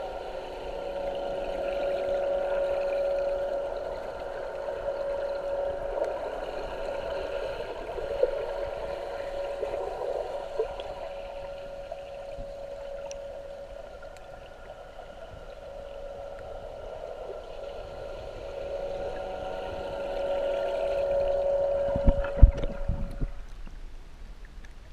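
Seabob underwater scooter's electric jet drive whining at a steady pitch, heard through the water over gurgling. It grows louder twice as the scooter passes close. Near the end come a few knocks and splashing thumps, and the whine stops.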